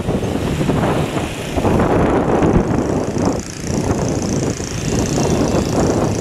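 Wind buffeting the microphone of a camera carried on a moving bicycle: a loud, uneven rumbling noise that rises and falls.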